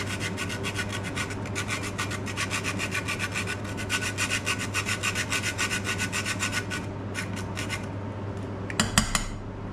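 Whole nutmeg being grated: quick, regular rasping strokes against a grater. They stop about seven seconds in, with a few more strokes after that and a sharp knock near the end.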